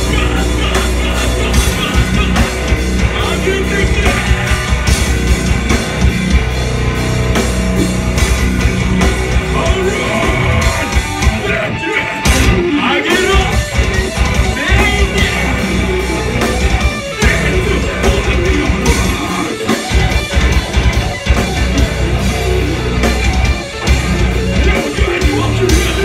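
Live metalcore band playing: loud distorted guitars, bass and drums with a vocalist singing and yelling over them, heard through the club's PA.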